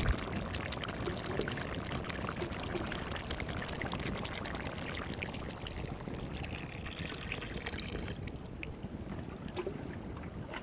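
Vegetable stock poured from a glass jar into a hot cast-iron Dutch oven, a steady splashing pour that thins out about eight seconds in. A short knock right at the start.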